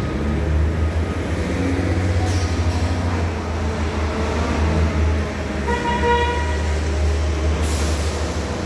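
A short horn toot, under a second long, about six seconds in, over a steady low rumble.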